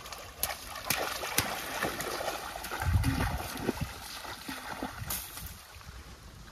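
Water splashing and sloshing, with scattered sharp knocks and a louder low thump about three seconds in.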